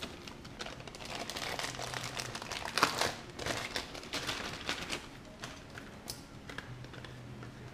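Clear plastic packaging bag crinkling and rustling as it is handled and opened to get the antenna and its cable out, dense for about five seconds, loudest about three seconds in, then sparser.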